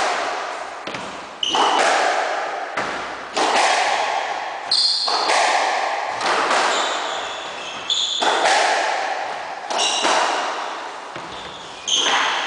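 A squash rally: the ball hitting rackets and the walls about once a second, each hit echoing around the court, with short high squeaks of shoes on the wooden floor between them.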